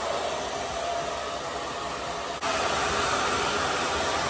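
Diva blow dryer running on its warm setting and blowing into a leggings hood: a steady rush of air with a motor whine. About two and a half seconds in, it steps up suddenly to a louder, higher-pitched whine.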